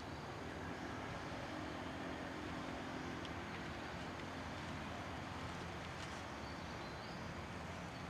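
Steady outdoor background noise: a low hum under an even hiss.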